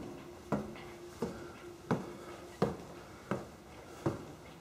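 Footsteps climbing hardwood stair treads: six even thuds, about one and a half per second, over a faint steady hum.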